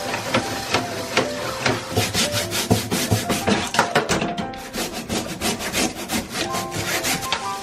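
Stiff bristle brush scrubbing a wet metal mesh grease filter with detergent in quick back-and-forth strokes, about three a second, each a rough scratchy rasp.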